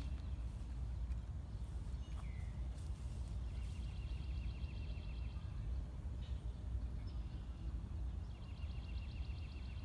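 A steady low rumble, with a small bird twice singing a fast trill of rapidly repeated high notes, first a few seconds in and again near the end.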